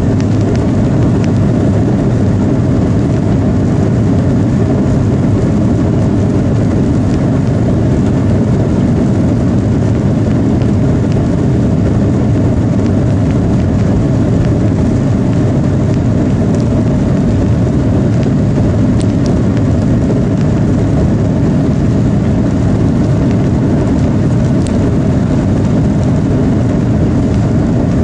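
Steady rumble of a jet airliner's engines and airframe heard from inside the cabin beside the wing as the plane moves slowly on the ground before takeoff.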